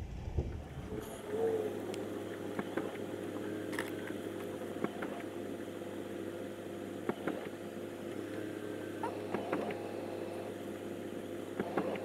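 Car idling, heard from inside the cabin: a steady low hum that settles in about a second in, with a few small clicks and knocks, as the car creeps forward a short way.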